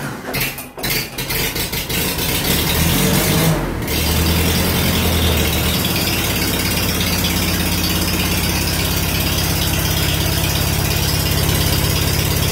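1947 Farmall H's four-cylinder gasoline engine just caught on a cold start, sputtering unevenly for the first couple of seconds, then settling into a steady run. It is running rough, which the owner thinks is a missing cylinder.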